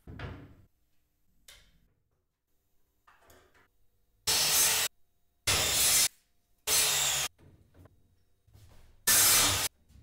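Power saw cutting wood in four short loud bursts, each about half a second long and cut off abruptly, after a faint fading noise at the start.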